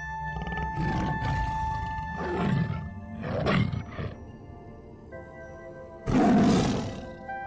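Lion roaring in four short bursts, the loudest about six seconds in, over background music of sustained tones.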